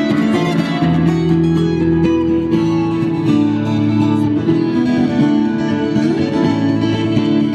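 Street buskers playing an acoustic guitar with a keyboard: a steady tune of plucked guitar notes over held chords and a low bass line.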